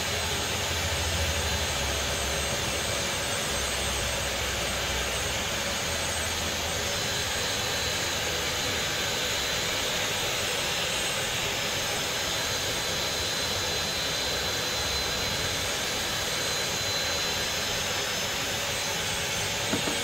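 Canister wet-and-dry vacuum cleaner running steadily: a dense rushing noise with a thin, steady high whine over it.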